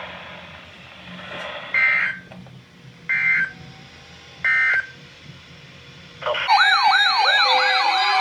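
Three short digital data bursts about a second and a half apart: the SAME end-of-message tones that close an Emergency Alert System weather radio broadcast. About six and a half seconds in, a loud siren-like alarm of fast repeating pitch sweeps over steady tones starts abruptly.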